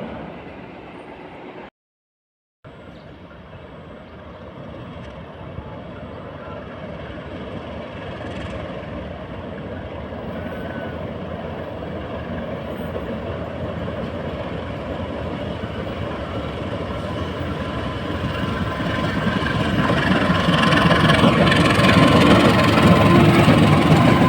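Diesel locomotive train approaching, its engine rumble growing steadily louder. The sound cuts out completely for about a second near the start.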